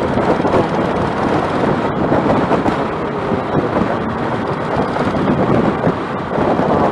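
Wind buffeting the microphone while riding a motorcycle, a steady rushing roar with the bike running underneath it.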